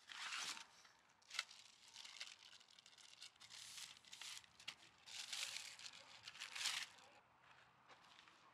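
Plastic wrapping crinkling and rustling in short, irregular bursts as new telescoping tent poles are unwrapped from their clear plastic sleeves, with one sharp click about a second and a half in.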